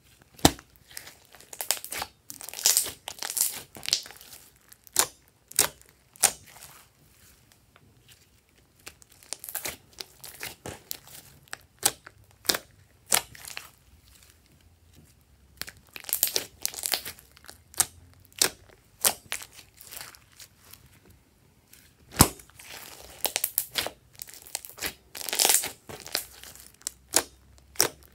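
Hands squeezing, stretching and folding glossy slime, making irregular sharp pops and crackles that come in clusters with quieter gaps between.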